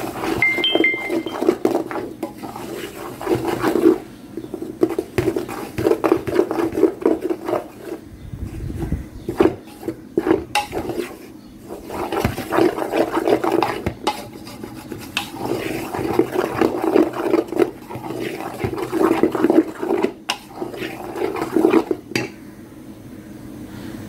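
Black plastic spatula stirring and scraping a dry, crumbly roasted whole-wheat flour mixture against the sides of a large stainless steel bowl, in repeated bouts of a second or two with short pauses. The stirring stops about two seconds before the end.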